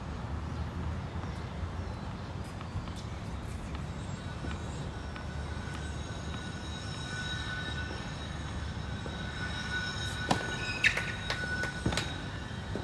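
Tennis ball struck by a racket on a serve about ten seconds in, with a short squeak and another sharp hit within the next two seconds. Underneath is a steady low rumble, joined partway through by a faint, steady high whine.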